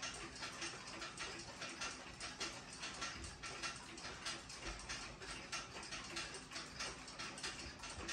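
Several pendulum wall clocks ticking at once, a few ticks a second in an uneven overlapping pattern.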